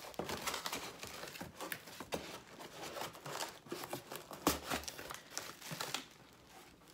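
Plastic wrapping crinkling and a cardboard box and insert rustling as a packaged item is handled and pulled apart, with sharp crackles throughout that die down about six seconds in.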